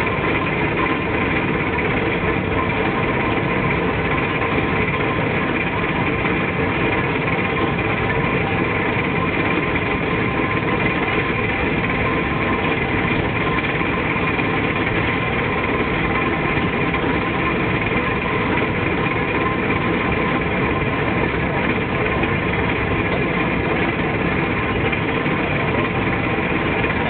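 EMD SD70ACe diesel-electric locomotive's 16-cylinder two-stroke diesel engine idling steadily: an even hum with several held tones that never changes in level.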